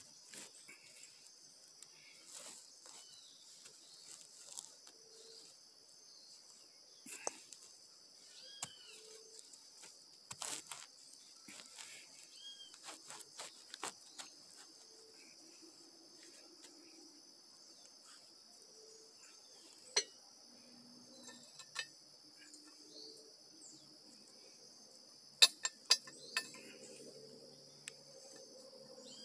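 A steady high insect drone from crickets in the woods, over scattered knocks and scrapes as rocks are set down on the leaf litter. Near the end comes a quick run of sharp metallic clicks as a metal grill grate is set onto the rocks.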